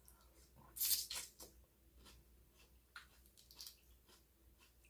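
A person eating seasoned seafood: a few brief wet smacks and chewing sounds, the loudest about a second in.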